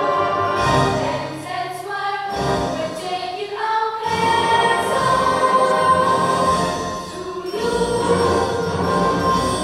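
Young girls' vocal ensemble singing a song together on stage, with long held notes and a short break between phrases.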